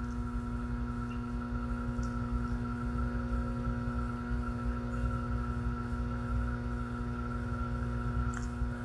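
Steady electrical hum, a constant drone made of several fixed pitched tones over a low rumble, with a couple of faint small clicks.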